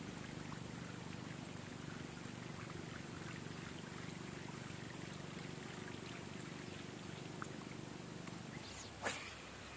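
Baitcasting reel being cranked in a steady low whirr as a lure is retrieved. The whirr stops near the end and is followed by a single sharp click.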